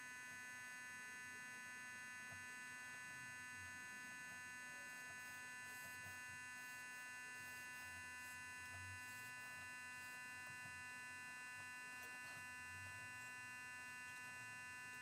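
Faint, steady electrical whine and hum, holding one pitch without change.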